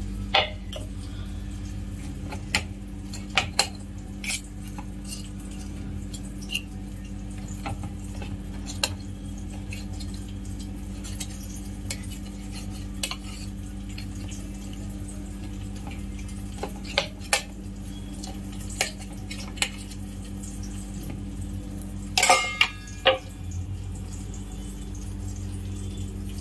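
A metal utensil clinking and scraping against a stainless steel plate as toast is cut into pieces: scattered single clinks, with a quick run of louder ones near the end. A steady low hum runs underneath.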